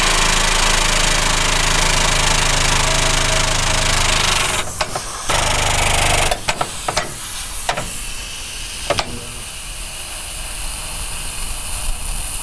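Hydraulic vehicle lift working under a pickup truck. Its pump motor hums steadily for about four and a half seconds and again briefly for about a second. Then come several sharp clicks and a quieter steady hiss as the truck is let down.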